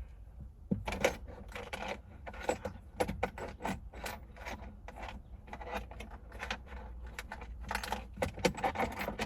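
Small metal screws and hardware clinking and rattling as they are rummaged through by hand, with many quick clicks several times a second while searching for a spare screw.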